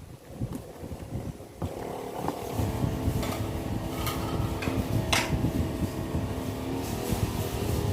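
An engine running steadily, coming in about a second and a half in, with a couple of sharp clicks partway through.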